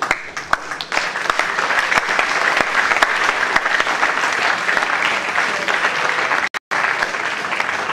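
Audience applauding, a dense patter of many hands clapping, broken once by a brief dropout in the sound about six and a half seconds in.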